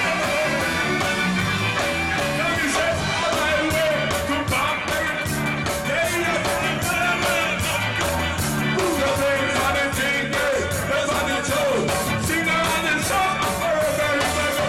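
Live ska band playing with a lead vocal sung into a microphone, over a steady, even beat.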